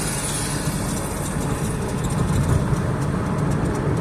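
Steady engine and road rumble of a Scion tC's four-cylinder engine, heard from inside the cabin while driving.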